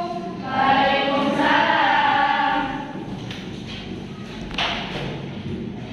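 A group of voices singing together, loudest in the first half and then quieter, with a single thump about four and a half seconds in.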